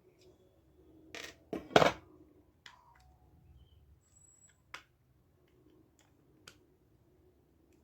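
Clicks and clatter of small hard parts being handled and set down, loudest in a quick cluster about one to two seconds in, followed by a few single clicks.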